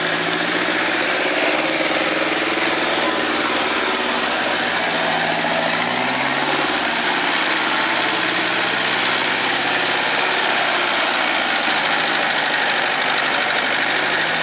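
UAZ four-wheel-drive's engine running under load as it drives through deep mud, its pitch rising and falling as the throttle is worked.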